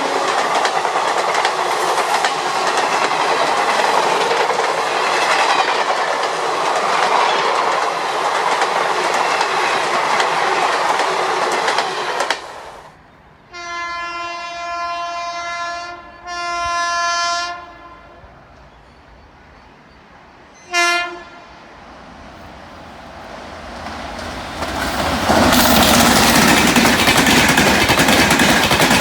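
Passenger train running past at speed, a steady loud rumble with wheel clatter over the rail joints, which breaks off about twelve seconds in. A locomotive horn then sounds two long blasts and one short toot, and near the end the rumble of an approaching train swells up loud again.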